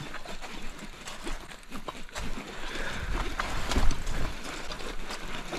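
Irregular clicks and knocks over a steady hiss of creek water while a hooked smallmouth bass is fought on rod and reel, with a louder low thump about four seconds in.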